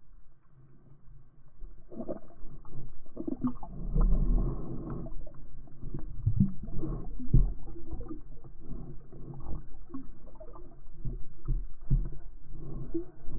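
Muffled water sloshing and rumbling, heard through an action camera's waterproof housing, with irregular soft knocks and gurgles.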